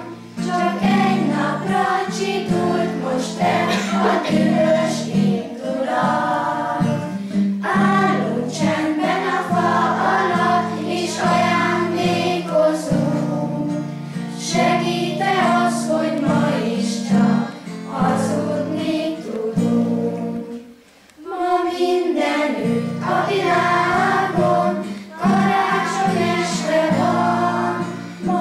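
A group of children singing a song together, with a short break in the singing about three-quarters of the way through.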